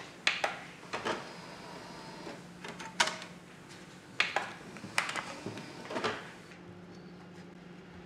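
Kitchen knife cutting cheese into cubes on a wooden cutting board: about eight sharp, irregular knocks of the blade on the board, stopping about six and a half seconds in.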